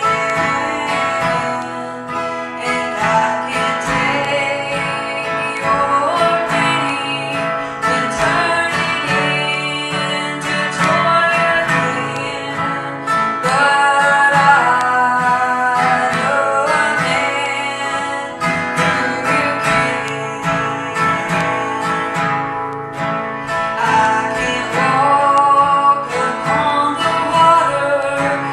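Music led by strummed acoustic guitar, with a singing voice over it.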